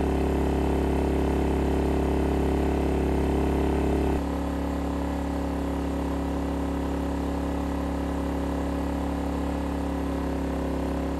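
EENOUR DK3000iSDF 3 kW dual-fuel inverter generator running steadily on LP gas, a constant engine hum. About four seconds in the hum becomes slightly quieter and its tone shifts.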